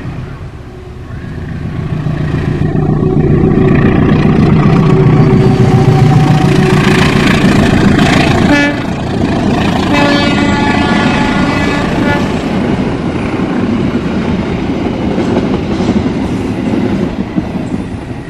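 KAI diesel locomotive passing close by at the head of a long passenger train. Its engine rumble builds as it comes up and peaks, a horn blast sounds around the middle, then the steady rolling noise of the passenger coaches carries on as they pass.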